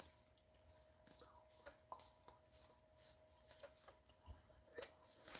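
Faint, scattered clicks and rustles of plastic toploaders knocking together as a stack of cards is flipped through by hand, over a faint steady hum.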